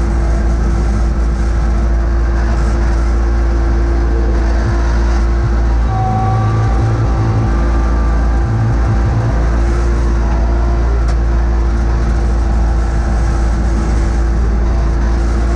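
John Deere X585 garden tractor's engine running steadily under load while it pushes snow with its front blade, a loud even rumble with a constant hum. A brief higher tone comes in about six seconds in.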